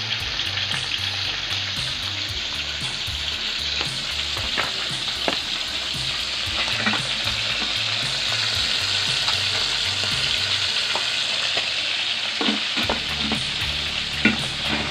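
Fish frying in hot oil in a wok: a steady sizzle, with a few short sharp clicks scattered through it.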